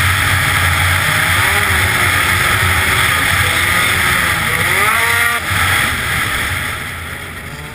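Arctic Cat ZR 900 two-stroke snowmobile engine running at high revs as the sled skims over open water, with the hiss of water spray. Its pitch climbs about five seconds in, then the engine backs off and the sound drops away toward the end.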